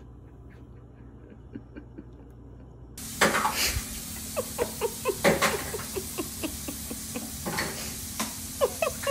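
A baby's hands squelching and slapping in a plastic bowl of sauce-covered food on a high-chair tray: a string of sharp wet clicks and smacks with a few short squeaky blips, starting about three seconds in after a quieter stretch with faint ticks.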